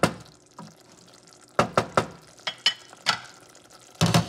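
Wooden spoon scraping and knocking in a saucepan of thick, simmering firfir sauce, in several short strokes, with a faint bubbling between them. A louder clatter comes near the end.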